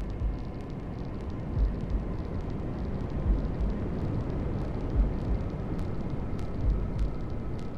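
Steady hair-dryer white noise with a fetal heartbeat laid over it: a low double thump, lub-dub, about every 1.7 seconds.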